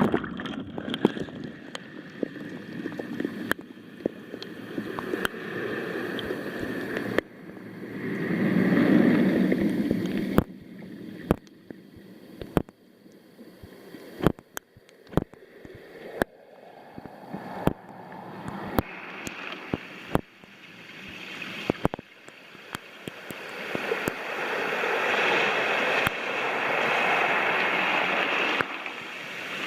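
Sea waves washing up and back over a pebble beach in slow swells, one building about a quarter of the way in and a longer one through the last third. Many sharp clicks of stones knocking together run through it.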